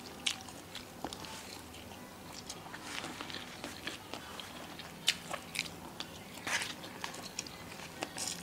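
A person biting and chewing close to the microphone, with scattered sharp clicks and short crunches from hard, thinly sliced cassava chips eaten with nasi uduk.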